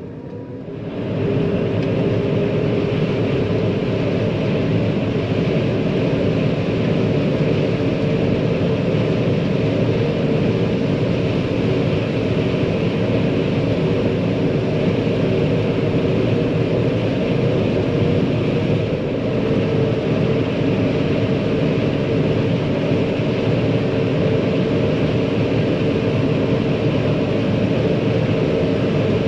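Large diesel farm machine's engine running steadily, a dense even drone that comes in about a second in.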